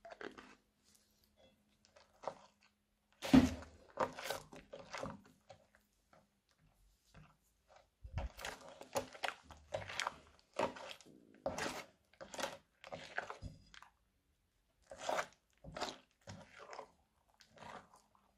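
Silicone spatula stirring and folding thick slime full of foam beads in a bowl: irregular wet crunching and squelching strokes, coming thick and fast in the second half, with a sharp knock about three seconds in.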